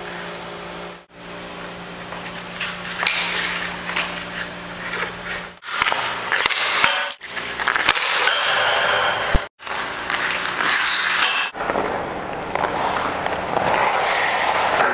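Ice hockey skate blades scraping and carving across rink ice, with sharp clacks of a hockey stick striking the puck, over a steady low hum in parts. The sound breaks off abruptly several times.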